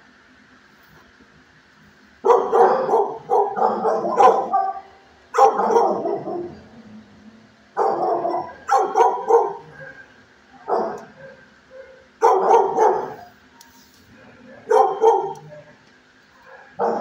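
Dogs barking in a shelter kennel, in about seven bouts of several barks each with short pauses between, starting about two seconds in, over a faint steady hum.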